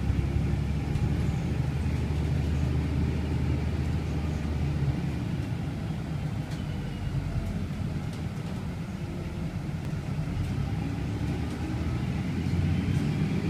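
Inside a moving city bus: steady low rumble of the engine and road, with a few light clicks and a faint whine rising near the end.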